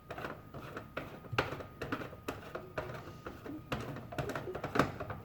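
Irregular light clicks and knocks of small objects being handled.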